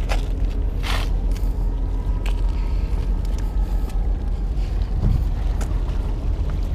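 Steady low rumble of wind buffeting the microphone, with a brief swish about a second in as a baitcasting rod is cast out over the water.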